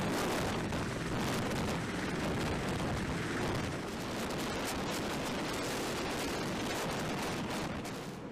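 Rotor noise and downwash of a V-22 Osprey tiltrotor hovering overhead: a steady, dense rushing noise with a rough low rumble. It eases off slightly near the end.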